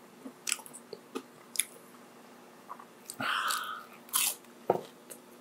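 A person eating close to the microphone: crunchy bites and chewing, heard as a handful of short, sharp clicks, with a longer noisy rush about three seconds in and a loud crunch just after.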